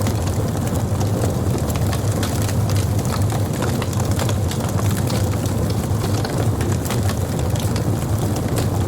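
Wood burning on a campfire: a steady low rumble of flames with frequent small crackles and pops throughout.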